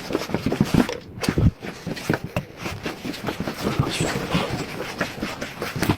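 Jingming Mouse NF-826 wire tracer's receiver giving its harsh, rapid crackling chatter as its probe is swept along the wall; the sound is its signal that the traced cable is near.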